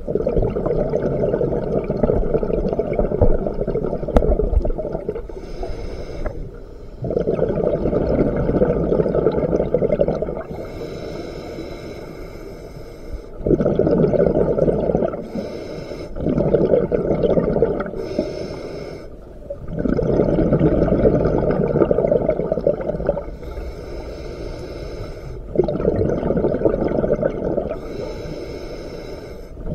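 Scuba regulator breathing underwater: a thin hiss on each inhale, then a long, loud bubbling rumble of exhaled air. The cycle repeats about six times, every four to six seconds.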